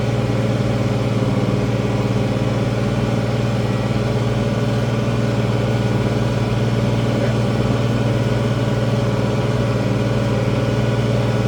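International 1566 tractor's six-cylinder turbo diesel engine running steadily at constant speed, a continuous low drone.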